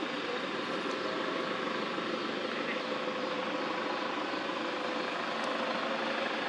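A steady engine drone with a faint held hum, unchanging throughout.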